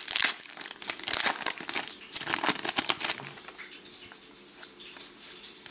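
Trading-card pack wrapper crinkling as it is handled, dense for about three seconds and then fainter, with cards rustling.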